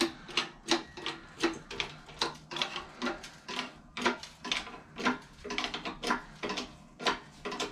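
Hydraulic shop press being pumped by hand while pressing a cylinder liner into a diesel engine block: a regular metallic clicking, about two to three clicks a second.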